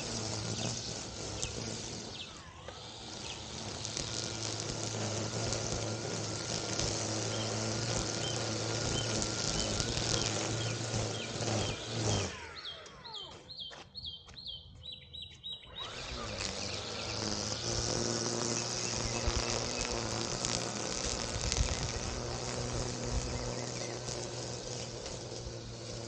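Lawn equipment motor running steadily with a constant buzzing hum. About halfway through, the motor drops out for roughly four seconds, leaving a quick run of about seven high chirps, and then the hum returns.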